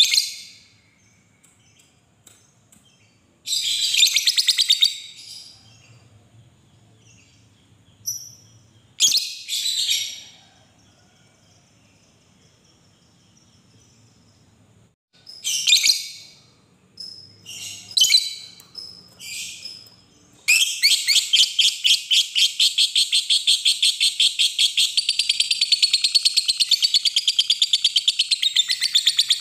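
Lovebird calling: a few short, high-pitched bursts of chirps with gaps between them, then, about 20 seconds in, one long unbroken trill of rapid rattling notes. This long rattling trill is the 'ngekek' song that lovebird keepers prize.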